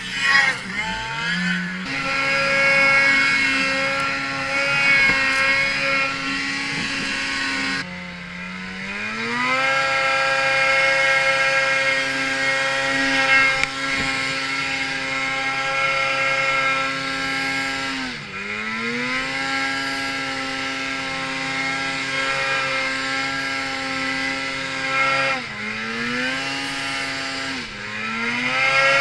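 Snowmobile engine under heavy throttle, held at a steady high pitch with the clutch engaged. Several times the revs drop off and climb back up to the same steady pitch as the rider lets off and gets back on the throttle.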